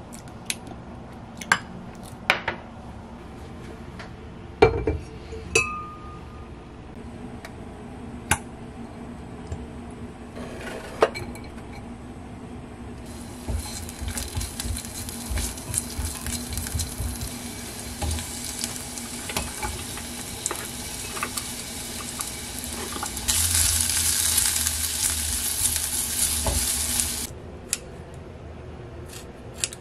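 A spoon clicking against a small glass while a thick sauce is mixed. About halfway through, chopped garlic starts sizzling as it fries in a ceramic pot, with a spatula scraping through it. The sizzle swells louder for a few seconds, then cuts off suddenly near the end.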